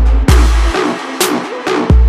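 Trap-style electronic dance music with heavy deep bass hits, a sharp snare-like hit about halfway, and quick hi-hats.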